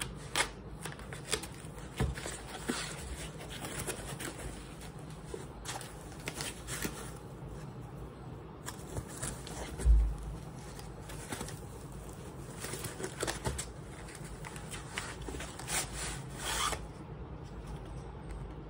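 Plastic mailer bag rustling and crinkling as it is slit with a small knife and handled, in many short scratchy bursts. A dull thump about ten seconds in is the loudest sound, and a longer crinkling rustle comes near the end as the bag is pulled off a paperback book.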